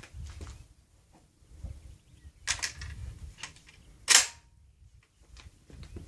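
Sharp metallic clacks from a 12-gauge semi-automatic shotgun being worked by hand, one about two and a half seconds in and a louder one about four seconds in with a brief metallic ring after it. The gun is malfunctioning, which the owner puts down to a newly fitted O-ring.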